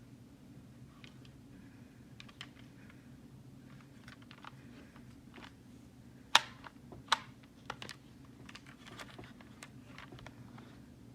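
Plastic clicks and taps from handling a Bandai XGeats Raise Buckle toy, scattered and irregular, with two sharper snaps about six and seven seconds in. A steady low hum runs underneath.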